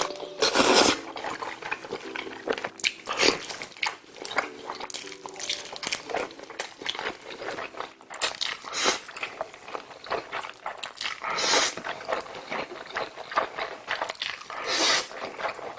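Close-miked eating of noodles: steady wet chewing and mouth clicks, with several louder slurps a few seconds apart.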